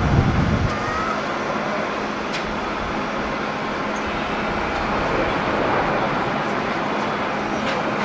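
Boeing 787 airliner's jet engines heard across the airfield as it rolls down the runway: a steady rushing roar with a faint low hum. Wind buffets the microphone briefly at the start.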